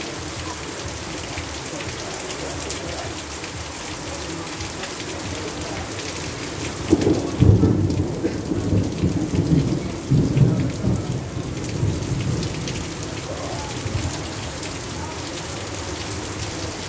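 Heavy rain falling steadily, with water streaming off a roof edge. About seven seconds in, a low roll of thunder comes in, swelling several times, and dies away by about twelve seconds.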